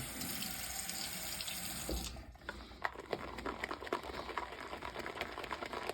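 A water tap runs steadily for about two seconds and is shut off, then a wet boar-bristle shaving brush is swirled in a lather bowl, making a fine, wet crackling as the shave soap is whipped into lather.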